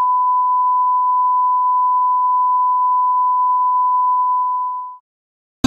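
Steady 1 kHz line-up test tone that accompanies colour bars. It stops about five seconds in, and music starts right at the very end.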